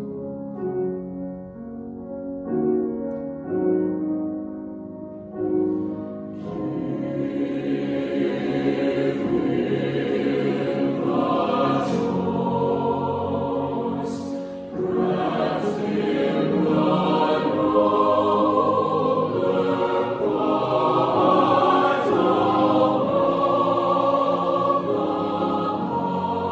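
Mixed choir of men's and women's voices singing, soft and sparse for the first few seconds, then swelling to full voice about six seconds in.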